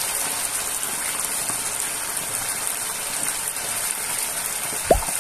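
Chicken wing drumettes deep-frying in hot oil in a pot, giving a steady sizzle. There is one sharp click near the end.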